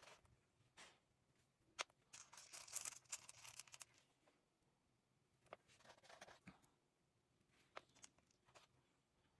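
Faint small clicks and rattles of beads and wire being handled while beads are strung for a necklace. There is a longer patch of rattling about two to four seconds in and another around six seconds.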